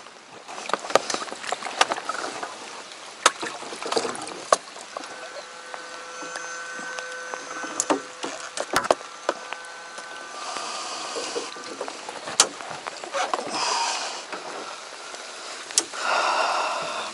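Sharp knocks and clatter of gear against a small plastic boat's hull. A steady whine runs for a few seconds in the middle, and short bursts of splashing water come near the end.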